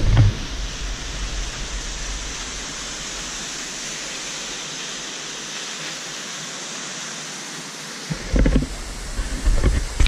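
Waterfall's falling water: a steady, even rushing hiss. Near the end, two short low rumbles break in on the microphone.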